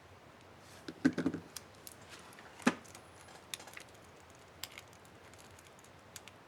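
Plastic clicks and snaps from an HP DV4 laptop keyboard's Enter key and its retainer clips: a quick cluster about a second in, one sharp snap a little before three seconds, then a few light ticks.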